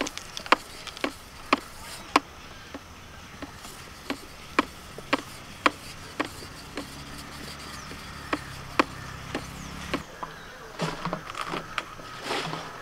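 A metal knife blade knocking against a wooden board in steady strokes, about two sharp knocks a second, which stop about ten seconds in.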